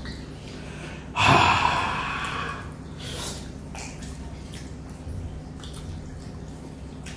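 Close-up eating sounds of two people eating rice and curry by hand: fingers scraping steel plates and wet mouth noises. About a second in, one loud noisy breath stands out, fading over a second and a half, with a shorter one a couple of seconds later.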